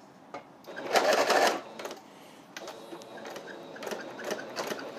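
Electric sewing machine running in one short burst of stitches about a second in, putting a lock stitch on the end of a seam in buckskin. A run of light, irregular clicks follows.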